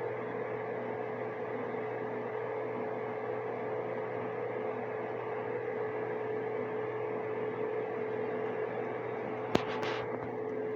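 Dehumidifiers running: a steady fan hiss with a constant hum. A single sharp click about nine and a half seconds in.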